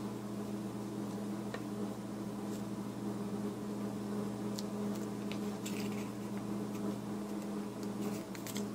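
A steady low hum, with a few faint light taps and rustles of paper and fabric being handled on a craft table, mostly in the middle and near the end.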